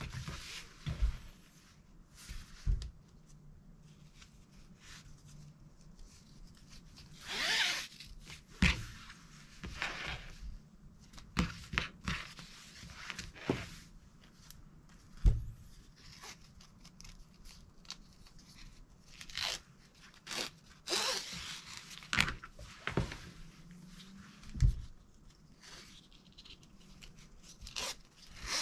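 Nylon webbing straps being handled and pulled through plastic buckles: irregular rasping swishes of webbing sliding through hardware, with scattered clicks and a few sharp knocks of buckles and straps set down on a cutting mat.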